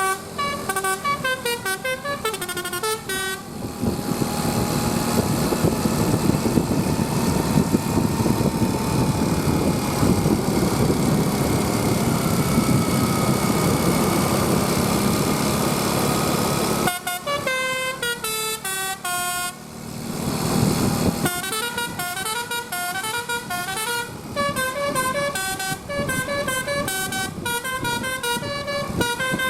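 Bus telolet 'Basuri' musical horn playing quick tunes of stepping notes, broken in the middle by a long stretch of loud, even noise, then the horn tunes start again.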